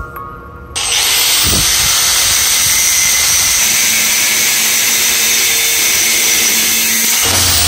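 Electric power tool running steadily with a loud, hissing noise, switching on abruptly about a second in and stopping shortly before the end.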